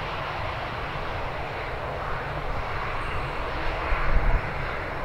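Jet engines of an Airbus A319 airliner running as it rolls out along the runway after landing: a steady, wide rush of engine noise over a low rumble. A brief low rumble swells about four seconds in.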